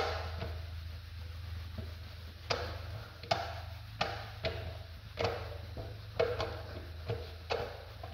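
A rag being rubbed by hand over a metal truck wheel rim while it is polished, with light irregular knocks about once or twice a second as the strokes meet the rim, over a steady low hum.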